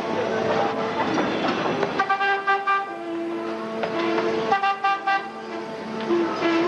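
Vehicle horns honking over a steady street din: several held tones overlapping and changing pitch every second or so.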